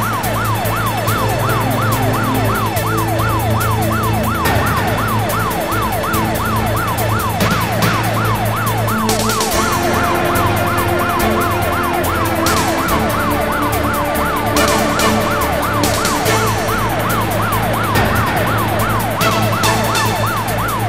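Police car siren in a fast yelp, a rising-and-falling wail repeating about three times a second, over the running of a car.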